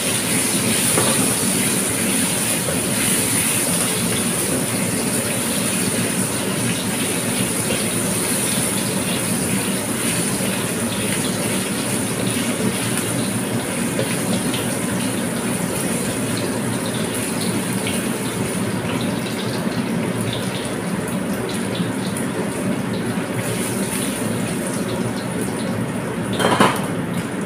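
Chunks of meat sizzling steadily as they fry in hot oil in a wok, with a brief knock near the end.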